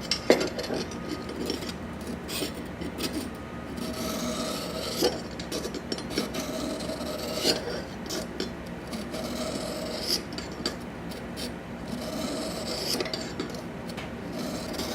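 A knife blade drawn stroke after stroke across an Eze-Lap diamond sharpening hone, a rasping scrape with each pass as the second side of the edge is sharpened. There is a brief sharp click about a quarter second in.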